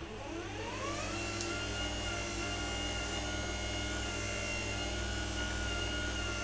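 Merlin QuietDrive roller door opener motor running its drive wheel in the down direction while the button is held to set the down limit. Its whine rises in pitch over the first second as the motor comes up to speed, then holds as a steady hum.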